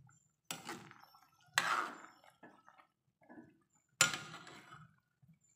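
Metal ladle stirring vegetable soup in an aluminium wok: three sharp knocks of the ladle against the pan, one soon after the start, one a second later and one about four seconds in, with the liquid sloshing in between.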